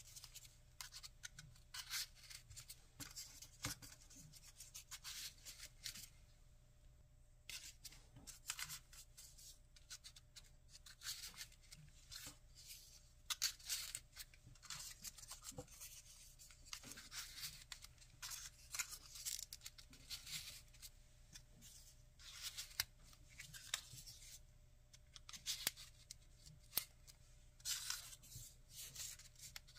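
Folded paper units of a 3D origami swan rustling and scraping against each other as hands press and adjust them, in many short irregular rustles with brief pauses about six and twenty-four seconds in.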